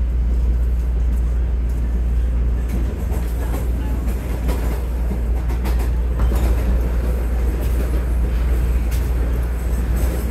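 TTC Line 1 Toronto Rocket subway train running between stations, heard from inside the passenger car: a steady low rumble of wheels and motors, with a few scattered sharp clicks from the rails.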